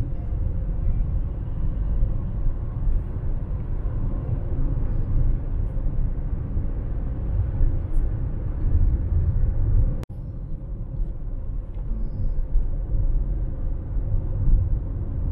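A steady low rumbling noise that drops out suddenly for a moment about ten seconds in.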